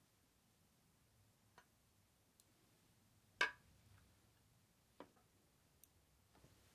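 Near silence broken by a few light clicks and knocks of tableware being handled. The loudest, about halfway through, is a glass of sake set down into a wooden masu, a sharp knock with a short ring.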